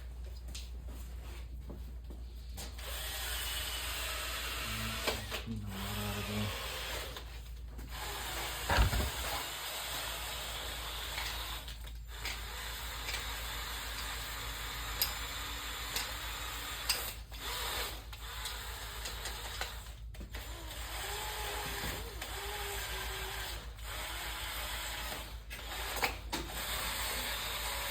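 Wire wheel on a power tool running and scrubbing against metal engine parts, a steady sound that gets louder a few seconds in. A sharp knock about nine seconds in.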